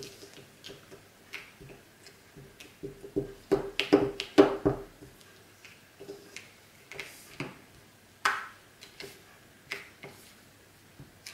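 Sticky homemade gummy-bear and cornstarch slime being stretched, pulled off the table and pressed down by hand: a series of small tacky clicks and smacks, busiest and loudest about three to five seconds in.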